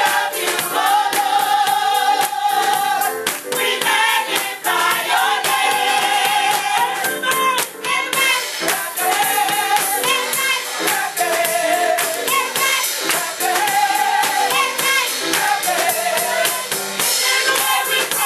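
A gospel choir of women singing, clapping their hands in a steady beat.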